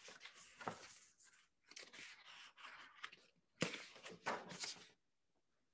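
Paper pages of a picture book rustling as the book is handled and a page is turned, louder for about a second near the middle, then stopping.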